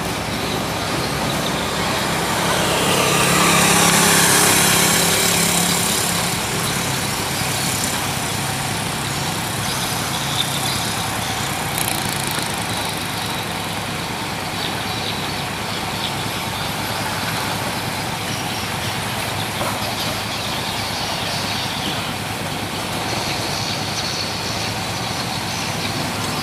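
Heavy log-laden truck driving past on a dirt road: diesel engine and tyres swell to their loudest about four seconds in with a falling pitch, then settle into a steady engine drone as it pulls away.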